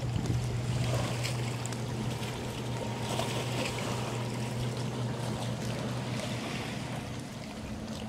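Small waves lapping and splashing among the rocks of a rock breakwater, with many small ticks and trickles. A steady low engine hum sits under it and fades out about six and a half seconds in.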